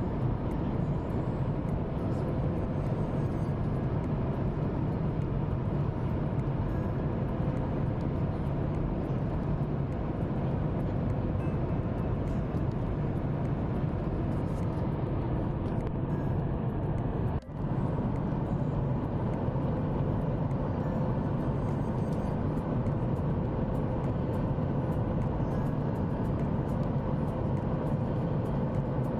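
Steady roar of cabin noise aboard a Boeing 737 MAX airliner, with a faint steady hum, that breaks off for an instant about seventeen seconds in.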